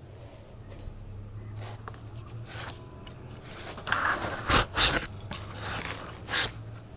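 White foam packing blocks being handled and pulled from a box, rustling and scraping against each other and the cardboard. There are a few louder scrapes about four to five seconds in and again near six seconds, over a low steady hum.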